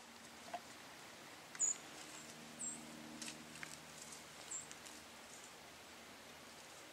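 Three short, very high-pitched chirps from a small animal, spread over the first few seconds, with a few faint ticks against a quiet outdoor background.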